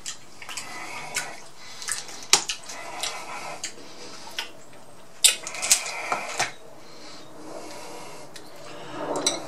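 Close-miked wet chewing and mouth sounds of eating, broken by several sharp cracks as Atlantic red crab leg shells are snapped apart by hand, the loudest cracks about two and five seconds in.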